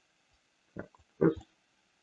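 A man's voice saying one short word, then a second brief vocal sound about half a second later, with near silence around them.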